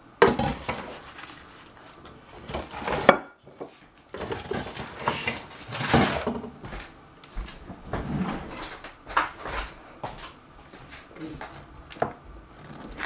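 Kitchen handling noise: the paper wrapper of a stick of butter rustling as it is opened and laid on a plastic cutting board, with scattered light knocks and clatter on the board and counter.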